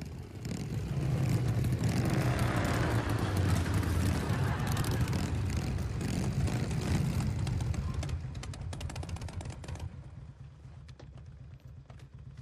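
Several motorcycle engines rumbling as a group of motorcycles pulls up. The sound swells about a second in, stays loud for several seconds, then dies down to a faint rumble near the end.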